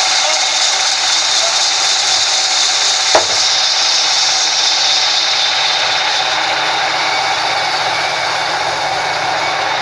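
Band sawmill blade ripping lengthwise through a log: a steady, loud, hissing sawing noise that eases slightly after about five seconds, with a single sharp knock about three seconds in.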